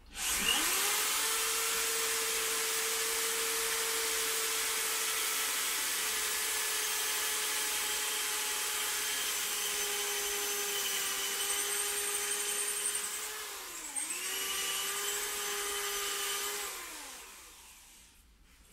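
Cordless drill-driver drilling, its motor running at a steady whine for about thirteen seconds with the pitch sagging slightly under load. It stops briefly and restarts about fourteen seconds in, then spins down about three seconds later.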